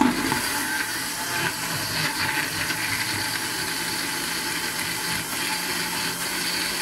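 Electric countertop blender switched on with a sudden start and running steadily, churning blanched, peeled tomatoes into purée with no water added.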